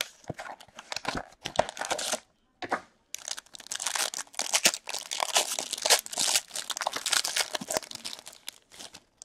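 Hockey card box opened by hand, its cardboard flaps and inner lid rustling, then a foil card pack crinkling and tearing open. The crackling runs almost without pause from about three seconds in.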